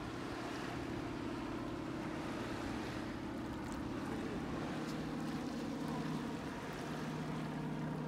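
Airplane flying over, a steady low engine drone, with wind and surf noise underneath.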